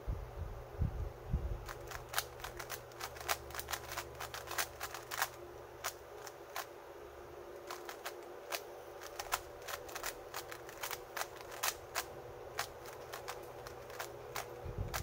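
Plastic 3×3 speed cube being turned by hand: quick, irregular clicks of the layers snapping round, several a second. A few low thuds come near the start.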